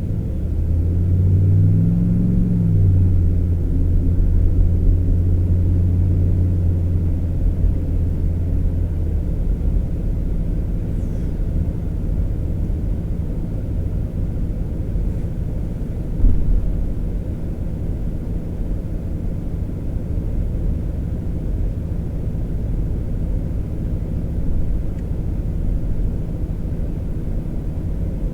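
Truck engine and road rumble heard from inside the cab while driving. The engine note rises and falls about two seconds in, then holds steady before fading back into the rumble.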